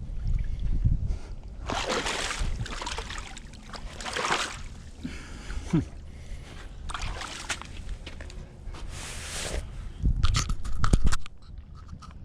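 Water sloshing and splashing in regular strokes about every two and a half seconds, like a paddle working a small boat through the water. About ten seconds in comes a loud stretch of low rumbling and sharp knocks.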